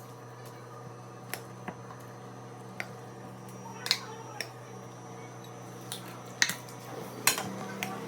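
Utensils clinking against dishes as food is served out: a scatter of sharp clinks, the loudest about four, six and a half and seven seconds in, over a steady low hum.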